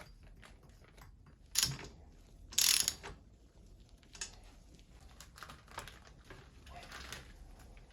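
Small metal clicks and ratcheting from hand tools and bicycle parts during assembly, mostly faint, with two louder rattling bursts about one and a half and two and a half seconds in.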